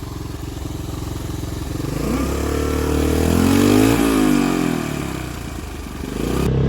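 Off-road motorcycle engine running, then revving up as it works up a steep rocky trail. It rises in pitch and loudness to a peak about four seconds in, then falls away again.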